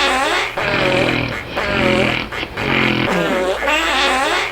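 Snoring that sounds like farting: a low, buzzy flapping snore alternating with a high, squeaky whistling breath, repeating over and over in a steady breathing rhythm.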